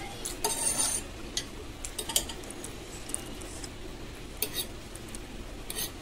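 Metal fork stirring and twirling saucy noodles on a plate: a short wet rustle, then scattered clinks and scrapes of the fork against the plate, the sharpest about two seconds in.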